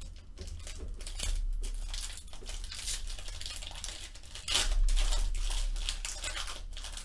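Foil trading-card pack wrapper crinkling and tearing as it is ripped open by hand, with the loudest rip about four and a half seconds in.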